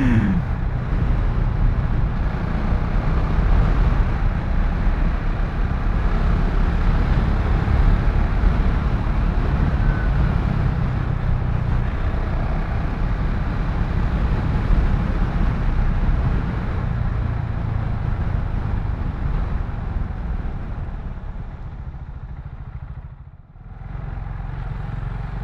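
KTM Duke 690 single-cylinder motorcycle engine running on the move, mixed with wind rush on the rider's mic. The engine note shifts as the bike rides along. About 23 seconds in the sound drops sharply for a moment, then carries on quieter.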